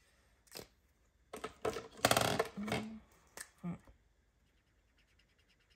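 Rustling and crinkling of paper and plastic being handled, with a few sharp clicks before and after a dense burst of crinkling in the middle, then faint quick ticking near the end.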